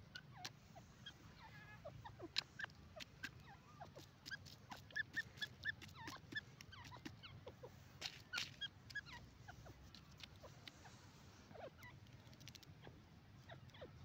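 Grey francolin giving quiet, short chirps and squeaky notes at irregular intervals, with some brief downward-sliding squeaks, among many small sharp clicks.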